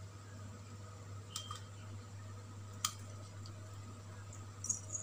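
Light clicks of a spoon against a small plastic bowl as food-colouring water is sprinkled over rice in a pan, twice, over a steady low hum.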